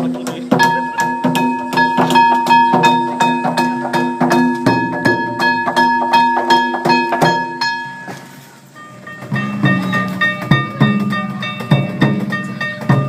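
Yamakasa festival music: drums and metal gongs beaten in a fast, even rhythm, with steady ringing tones over the strokes. It dips briefly about eight seconds in, then resumes with the ringing at a different pitch.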